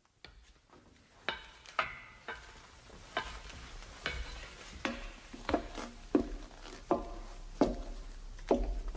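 A run of sharp, ringing knocks, scattered at first and then evenly paced at about one every 0.7 s, growing louder, over a low hum that swells toward the end.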